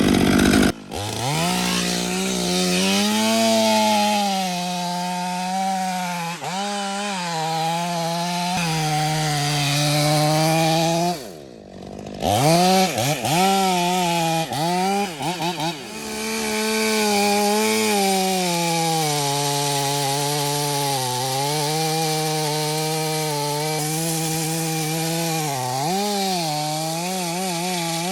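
Two-stroke chainsaw running at high revs as it cuts into very hard Australian pine, its pitch sagging under load and recovering. About eleven seconds in, the engine drops off briefly and is blipped several times before it settles back into the cut.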